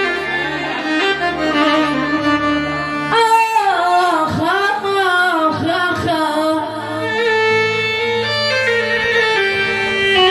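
Arabic song music: an ornamented melody line that slides and bends between notes, over steady held bass notes.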